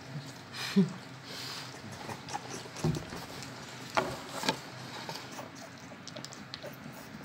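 Staffordshire bull terrier puppies under a month old moving and feeding at a milk bottle: scattered small clicks, smacks and rustles, with a short sharp sound about a second in and sharper clicks around three and four seconds in.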